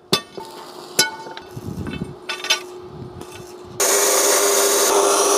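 Steel pipes being struck and clanked together, a few sharp metallic clinks that ring briefly. About four seconds in, a power tool cuts in suddenly and runs steadily, a loud hiss with a hum under it, as the steel frame is worked on.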